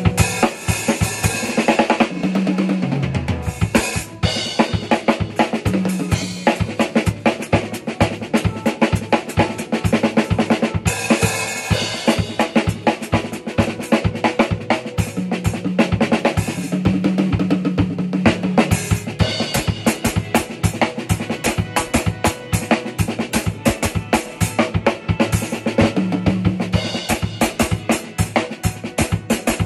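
Drum kit played continuously with sticks: fast hits on the kick, snare and cymbals, with a bass line of stepping low notes underneath from a backing track.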